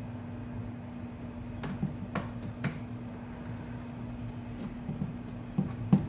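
Plastic base cover of a Dell laptop being pressed back into place by hand: three sharp clicks of its clips snapping in, about half a second apart, a few soft knocks of plastic, and a louder knock near the end, over a steady low hum.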